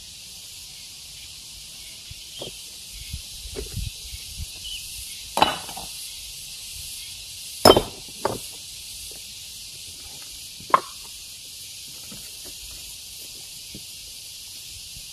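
A handful of sharp, irregular knocks of rock on rock, the loudest about eight seconds in, over a steady high hiss.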